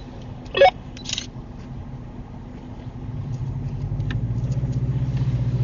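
Off-road vehicle's engine under throttle in reverse, trying to back out of a mud hole; the engine note builds and grows louder from about three seconds in. A brief shout near the start.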